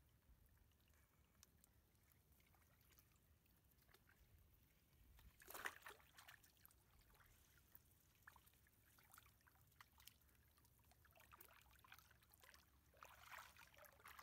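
Faint sloshing and trickling of shallow water stirred by men wading and handling a wet gill net, with one brief louder slosh a little before halfway through.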